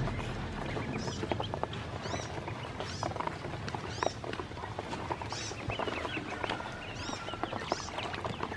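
A group of ducklings peeping, with short high chirps one or two a second, among quick sharp clicks of their bills pecking grain off the bottom of a plastic tub.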